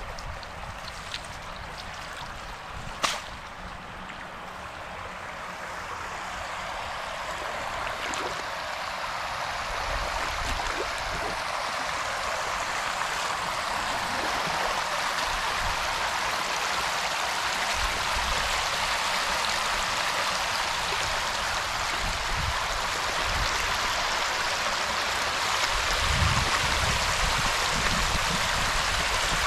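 Steady rush of running water, growing louder over the first several seconds and then holding, with one sharp click about three seconds in.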